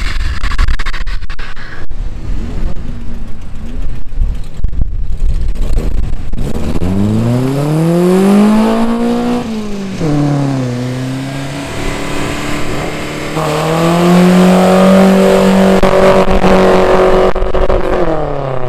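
Racing engine noise: a loud, uneven rumble at first. Then one engine revs up about seven seconds in and drops back after about three seconds. It runs at a lower steady pitch, then climbs and holds a higher steady pitch for about four seconds before falling off near the end.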